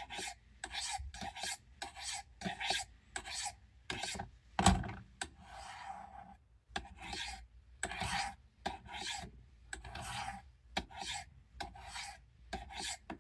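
Knife blade drawn in quick, repeated rasping strokes, about two a second, across a Spyderco sharpener: the Victorinox Evoke's dull factory edge being touched up.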